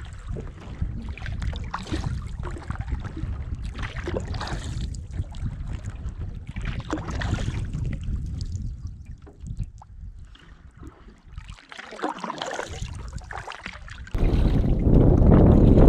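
Lake water lapping and trickling against a canoe hull close to the microphone, with paddle strokes and drips splashing every couple of seconds. Near the end it switches abruptly to loud, low wind buffeting on the microphone.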